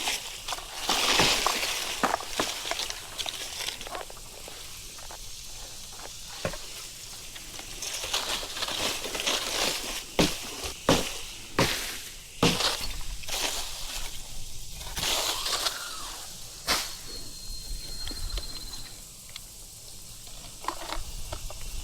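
Irregular rustling and crackling of brush and branches, with scattered sharp snaps and clinks.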